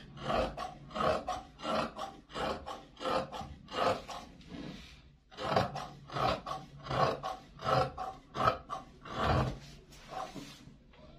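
Large dressmaker's shears cutting through cloth laid flat on a cutting table, one rasping snip after another at about two a second, with a short pause about halfway through.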